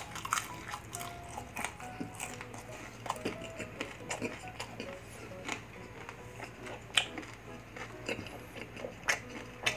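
Close-miked chewing of fried food with the mouth closed: irregular wet mouth clicks and small crunches.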